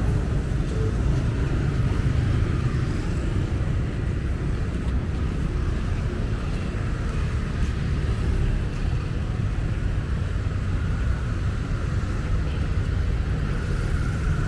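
Steady road traffic of cars and motorbikes running along a busy city street, a constant low rumble.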